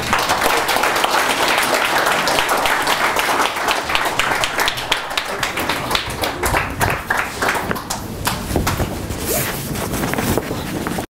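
Audience applauding, a dense crowd of hand claps that cuts off suddenly near the end.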